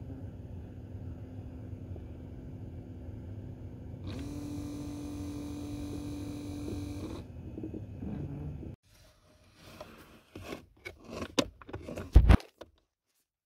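A Valeo climate-control servo motor for the defroster flap runs for about three seconds with a steady whine, turning its white gear to a new position as the repaired actuator passes a test before reassembly, over a steady low rush. After that, clicks and a sharp knock near the end as the actuator is handled by hand.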